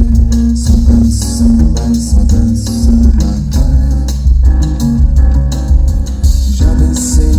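Live bossa nova band playing an instrumental passage over the PA: piano and upright double bass with guitar and light percussion, the deep bass notes loudest.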